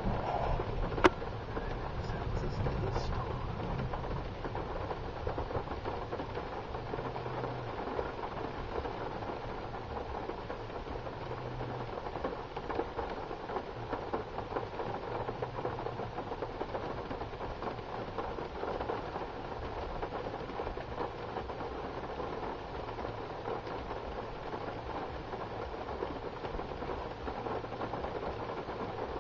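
Thunderstorm heard from a vehicle with its hatch open: steady heavy rain, with a low rumble that swells and fades every few seconds. A single sharp click about a second in.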